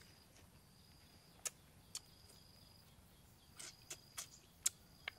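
Wet lip smacks and sucking clicks from a mouth sucking on a cut green lemon wedge: two sharp smacks, then a quick run of them in the second half. A faint high steady tone comes and goes behind them.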